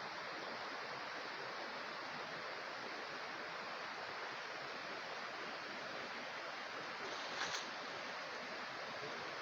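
Steady rush of river water flowing over rocks, with two brief ticks about seven and a half seconds in.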